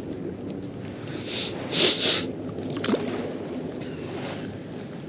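River water lapping and wind, a steady low wash, with a few short hissing rushes about two seconds in.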